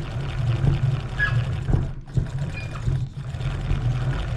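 Kayak pedal drive spun by hand, its propeller and gears turning with a steady low hum, a few knocks and short squeaks. The squeaking comes from worn bearings that need replacing.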